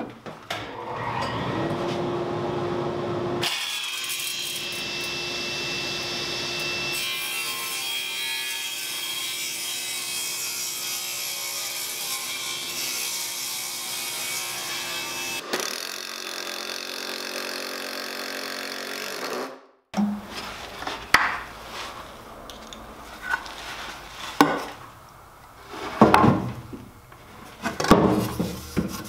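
Table saw running and cutting through pine 2x4 boards, a steady loud whine and hum for most of the first twenty seconds. After that come scattered wooden knocks and clunks as a 2x4 leg brace is fitted against the underside of a folding outfeed table.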